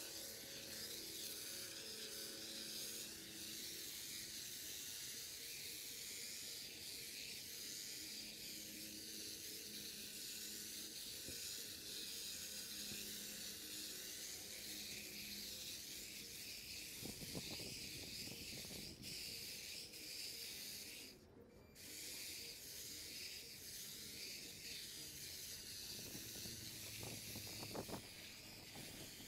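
Faint steady high-pitched hiss, with soft brief rustling about seventeen seconds in and again near the end, and a moment where the hiss drops out about two-thirds of the way through.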